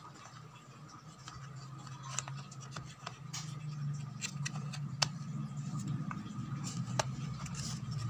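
Fingers handling and rubbing the plastic base of an electric kettle, with scattered clicks and scrapes from about two seconds in. The sharpest clicks come near the middle and near the end. Beneath them is a low steady hum that grows louder.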